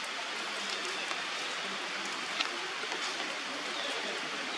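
Steady, even hissing noise with a few faint ticks, one plainer about halfway through.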